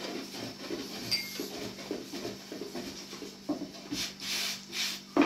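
Thin wooden rolling pin rolling out flatbread dough on a round wooden board: soft, irregular knocking and rumbling strokes, with a few brief swishes about four seconds in as floury hands brush the dough and flour.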